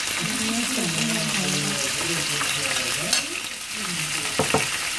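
Marinated pork slices dropped into hot oil in a nonstick frying pan, sizzling steadily, with a few sharp clinks of the metal serving spoon near the end.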